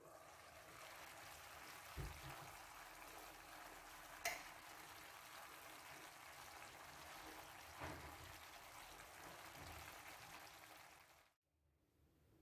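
Faint, steady sizzling of penne and tomato-meat sauce cooking in a frying pan, with a few light knocks, the sharpest about four seconds in. The sizzling cuts off suddenly near the end.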